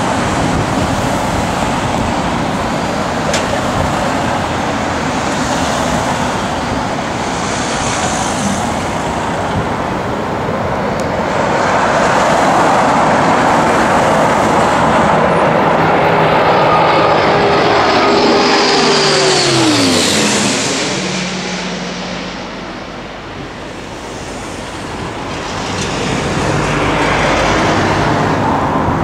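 Airbus A400M's four TP400 turboprop engines and eight-bladed propellers drone as the aircraft makes a low pass, growing louder as it comes in head-on. About nineteen seconds in, the propeller tone drops sharply in pitch as it passes overhead, the sound dips, then swells again as it banks away.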